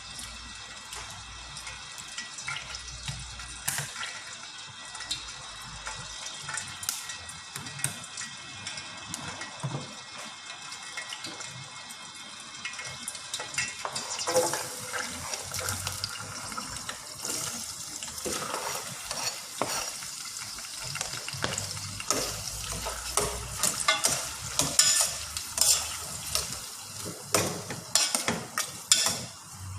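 Food frying in a pan with a steady sizzle, while a metal utensil stirs, scrapes and knocks against the pan. The stirring grows busier and louder from about halfway through.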